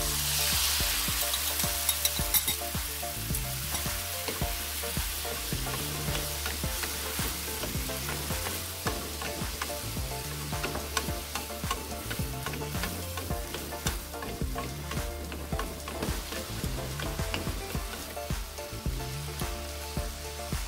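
Soy-based sauce poured into a hot frying pan of shrimp, lotus root and peppers: a loud hiss on contact that fades over a couple of seconds. Then a steady sizzle with many small clicks and scrapes as the stir-fry is stirred in the pan.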